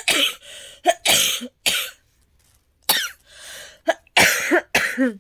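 A woman's coughing fit: a run of short, harsh coughs in quick clusters, with a drawn breath partway through. It is a lingering cough from an itchy throat that has not cleared up.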